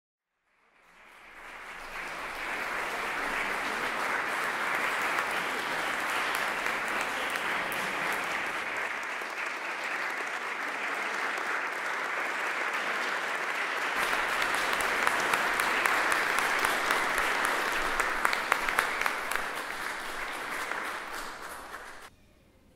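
Audience applauding steadily. The clapping fades in over the first couple of seconds and cuts off abruptly near the end.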